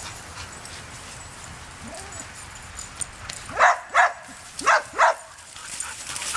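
A dog barking four times in quick succession, short sharp barks starting a little past halfway, the play barking of dogs chasing each other.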